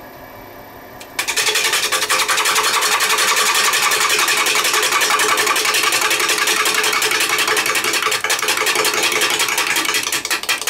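A woodturning gouge taking an interrupted cut on a spinning square-winged blank of kiln-dried pine on a lathe: after about a second of lathe hum the tool bites and each pass of the wings strikes the edge in a loud, rapid clatter, which slows near the end as the lathe winds down.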